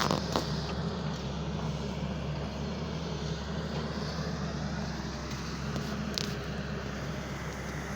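Construction machine's engine running steadily, with a few short sharp clanks near the start and about six seconds in.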